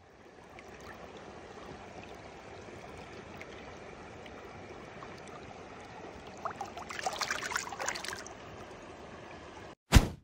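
Shallow stream water running steadily, with a few seconds of splashing about two-thirds through as a rainbow trout is let go from a hand in the water. A short, loud thump near the end, where the water sound cuts off.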